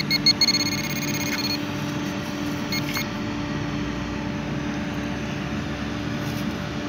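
Handheld metal-detecting pinpointer beeping rapidly, then holding one continuous high tone for about a second, the signal that a metal target is right at its tip; two short beeps follow about three seconds in. A steady low hum runs underneath.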